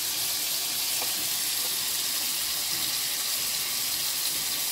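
Ground-meat patties sizzling in hot oil in a frying pan: a steady, even high hiss.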